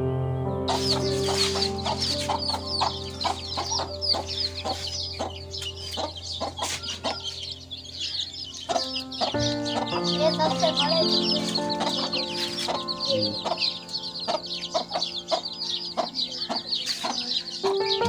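A brood of domestic chicks peeping constantly in quick, high chirps, with a mother hen clucking among them, over soft background music with held notes.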